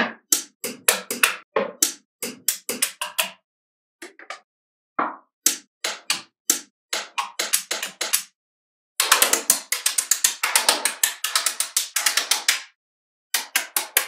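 Small magnetic balls clicking and snapping together as blocks of them are pressed into place, in quick runs of sharp clicks with silent gaps. About nine seconds in comes a dense flurry of clicks lasting a few seconds.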